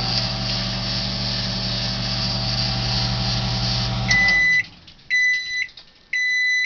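Kenmore microwave oven running a short heating cycle: a steady hum with fan noise, which stops about four seconds in. Its end-of-cycle beep then sounds three times, about a second apart.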